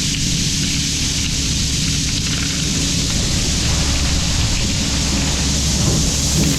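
Steady low hum of a heavy construction machine's diesel engine running, under a constant loud hiss.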